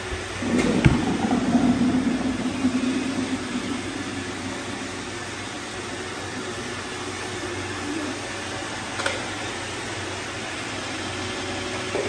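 Several iRobot Roomba robot vacuums running with a steady motor hum, louder for the first few seconds. A couple of short clicks, about a second in and again near the end.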